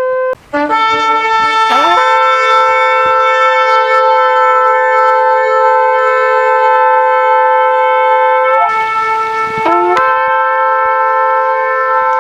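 Shofar blown in long held blasts. There is a brief break near the start and an upward slide in pitch just before two seconds in, then a long steady note. Around nine seconds in the tone turns breathy and wavers, then the steady note returns.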